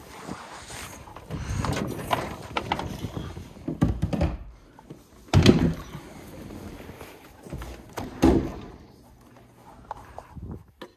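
A series of dull thuds and knocks from things being handled and a door, with rustling between them; the loudest thuds come about halfway through and again after about eight seconds.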